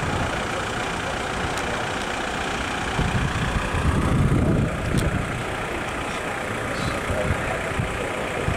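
Steady road traffic noise with vehicle engines running, growing louder with a low rumble about three seconds in.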